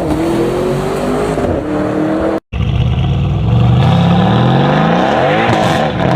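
A performance wagon's engine revving hard as the car pulls away. There is a short cut about two and a half seconds in, then the engine climbs under hard acceleration and drops in pitch as the car goes past, near the end.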